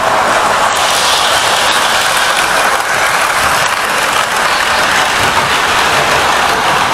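Model railway locomotive running on the layout's track: the steady, noisy run of its motor and wheels on the rails.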